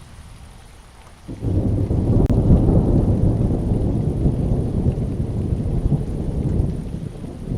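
Thunder rumbling over a rainstorm: a low rumble breaks in suddenly about a second in and rolls on loudly for several seconds.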